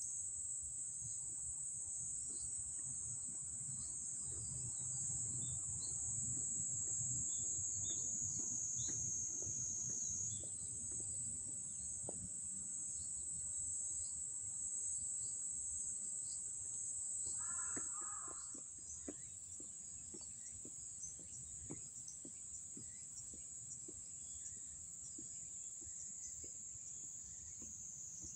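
Steady, high-pitched shrill of summer insects in the trees, with a low rumble underneath that fades about two-thirds of the way through. A brief bird call is heard around the same point.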